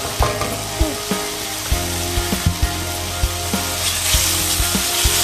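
Garlic and ginger sizzling steadily as they fry in hot oil in a pan.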